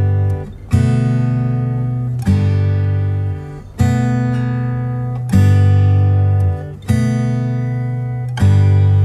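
Music: acoustic guitar chords strummed about once every second and a half, each left ringing and fading before the next.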